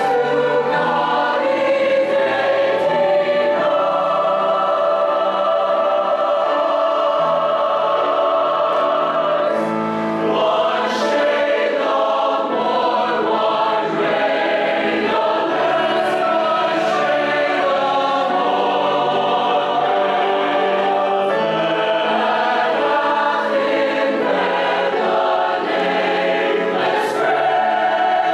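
Mixed choir of teenage voices singing in sustained harmony, several parts moving together from chord to chord.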